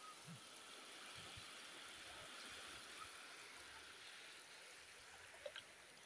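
Faint, steady wash of small waves lapping over a sandy shore, with a couple of faint ticks near the end.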